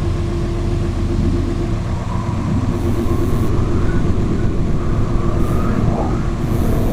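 Space-data sonification presented as the sound of the planet Mercury: a steady low rumble with faint, slowly wavering higher tones drifting above it.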